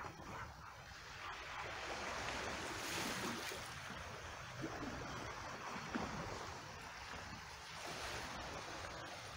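Small waves washing over rocks and cobbles at the water's edge, mixed with water gurgling and trickling in a rock pool. The wash swells about three seconds in and eases off, with a couple of small splashes past the middle.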